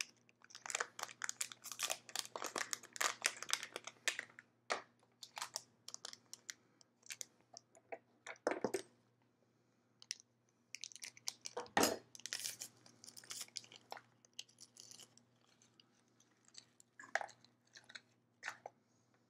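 Anti-static component bags being torn open and crinkled by hand: clusters of quick plastic crackles and clicks, with a couple of heavier knocks in the middle as parts are handled on the mat.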